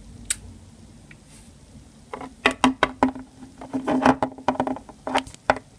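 A hard plastic toy figure tapped against a tabletop, the taps standing in for its footsteps as it is walked in. One lone tap comes first, then about two seconds in a quick, irregular run of a dozen or more taps.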